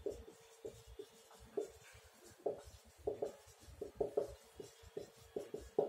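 Marker pen writing on a whiteboard: a run of short, irregular strokes and scratches as words are written out.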